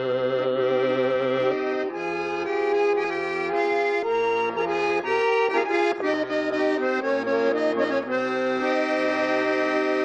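Instrumental break in a Nogai folk song: an accordion plays sustained chords and a melody over alternating bass notes.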